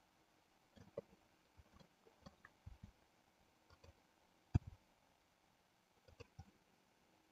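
Faint, scattered clicks of a computer mouse and keyboard keys, irregularly spaced, the loudest about four and a half seconds in.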